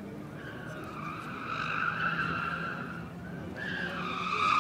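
Nissan 300ZX Turbo's tires squealing as the car drifts, two long squeals: one from about half a second in to about three seconds, and a second, louder one building near the end. The engine's steady drone runs beneath.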